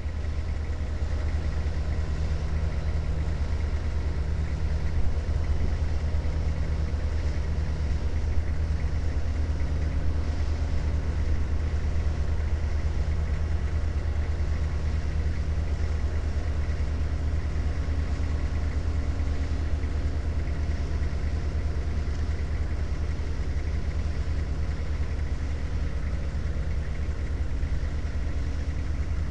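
A diesel engine idling with a steady low rumble, heard from inside a vehicle cab.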